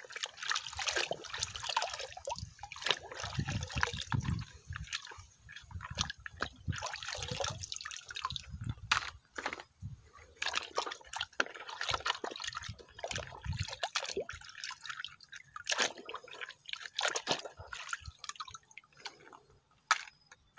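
Water splashing and dripping as a muddy toy tank is rinsed and scrubbed by hand, with irregular small clicks and knocks of the toy being handled.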